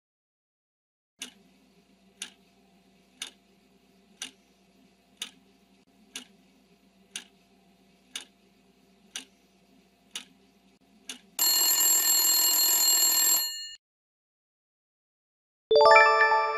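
Quiz countdown-timer sound effect: a clock ticks once a second about ten times, then an alarm rings for about two seconds as time runs out. Near the end a bright chime rings out and fades as the answer is revealed.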